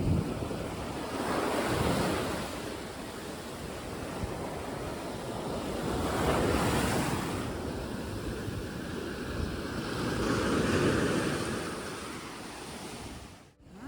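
Mediterranean surf: waves breaking and washing up the shore in three swells about four seconds apart, with wind rumbling on the microphone. The sound cuts out briefly near the end.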